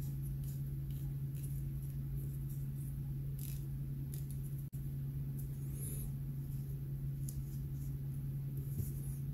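Faint small clicks and scratches of fingers handling a small metal kerosene-lantern burner part and wick, over a steady low hum.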